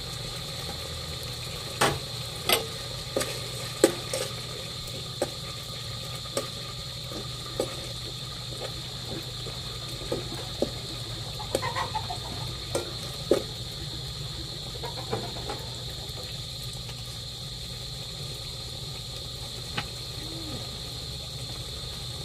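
A utensil tapping and scraping an aluminium pot while fish pieces in sauce are stirred and mashed, a dozen or so scattered clicks and knocks, over a steady background hum.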